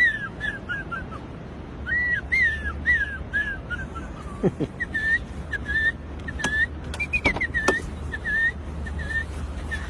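A man whistling an imitation of birdsong: a quick run of short chirps stepping down in pitch over about four seconds, then after a short break a row of evenly repeated chirps.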